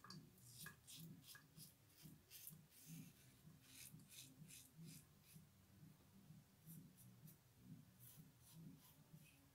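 RazoRock Gamechanger .68-p safety razor faintly scraping through lather and stubble in many short, quick strokes.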